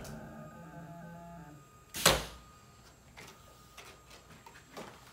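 Computerized mat cutter's motors whining as the cutting head's carriage travels, with a pitch that shifts in steps before stopping about a second and a half in. About two seconds in comes a single loud sharp thump, followed by faint clicks and rustles as the mat board is handled.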